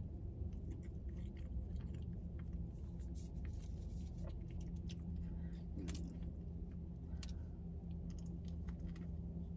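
Close-up chewing of a honey butter chicken biscuit, with scattered small mouth clicks and another bite near the end, over a steady low hum.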